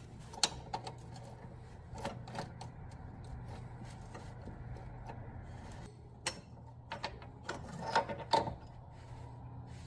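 Scattered light metallic clicks and clinks of hand tools on a nut and bolt as the power steering rack mounting nut is worked loose and spun off by hand, over a faint steady low hum.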